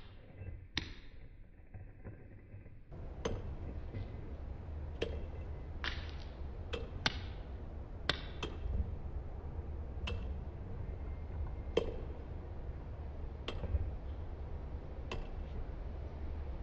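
Sharp single taps or clicks at irregular intervals, about one every second or two, some with a short ring, over a low steady rumble.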